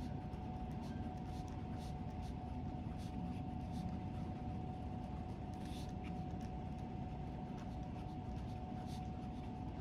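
Pen writing on a paper workbook page: faint, irregular scratches of the strokes over a steady room hum.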